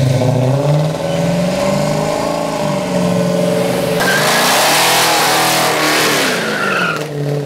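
Muscle-car engine revving hard, its pitch rising and falling. From about four seconds in, a burnout: rear tyres spin and squeal on wet asphalt while the engine is held high.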